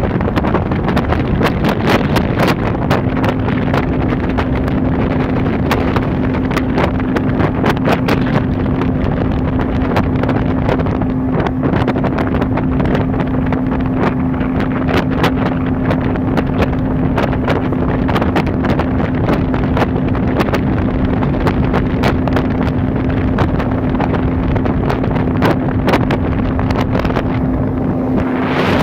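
1989 Yamaha 40 hp two-stroke outboard running under way, its engine note holding steady from about three seconds in, with heavy wind crackling on the microphone.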